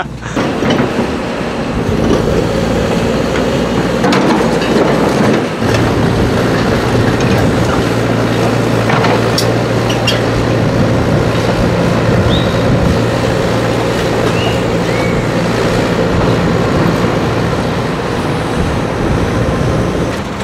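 Heavy diesel engines of a rock-laden tipper truck and a Hyundai tracked excavator working hard together, the excavator pushing on the truck's load with its bucket to shove the stuck truck up the slope. A loud, steady engine drone with a few short knocks.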